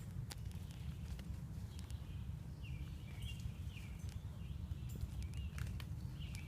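Footsteps on a woodland trail with scattered sharp crackles, over a steady low rumble of wind on the microphone. From about two and a half seconds in, a bird calls repeatedly in short falling chirps.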